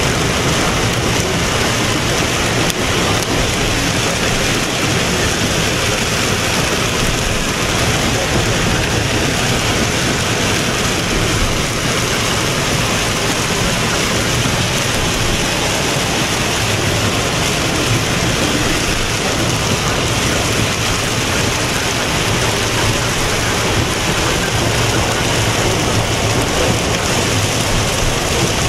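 Heavy rain beating on a car's roof and windshield, heard from inside the car: a loud, steady, dense hiss with no break.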